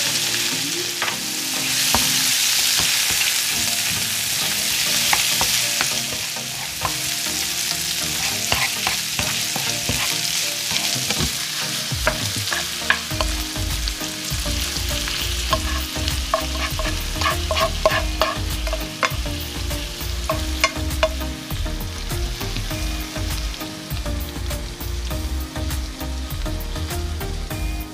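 Shrimp frying in butter, oil and minced garlic in a frying pan, sizzling steadily. From about halfway a wooden spatula stirs them, clacking and scraping against the pan.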